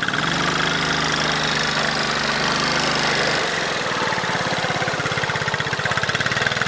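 An engine running steadily, its note changing a little past three seconds in to a rapid, even throbbing.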